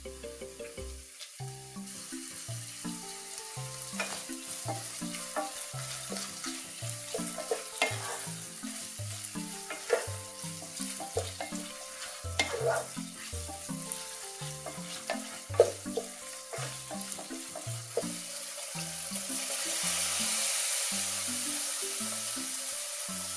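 Food frying in oil in a pan, sizzling while a utensil stirs it and clicks against the pan. Near the end the sizzle swells into a louder, steady hiss.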